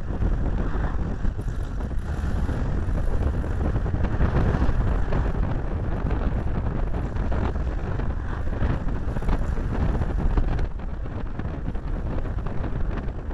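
Wind rushing over a small camera's microphone taped to the bonnet of a moving VW Beetle, over a low road rumble. It eases a little about three-quarters of the way through.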